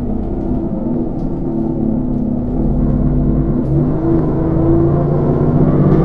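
Enviro 400 Trident double-decker bus under way, heard from the upper deck. Its engine and driveline give a steady drone of several hums with light rattles, and the drone grows louder about three to four seconds in.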